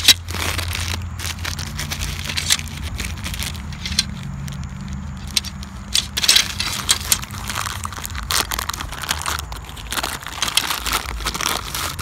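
Metal frame tubes of a golf practice net clinking and clattering against each other as they are handled, with the crinkle of their plastic bags. A steady low hum runs underneath.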